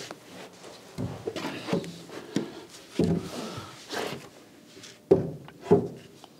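Heavy timber beam being shifted and set in place against an old oak beam: a series of dull wooden knocks and thunks, the sharpest two about five seconds in.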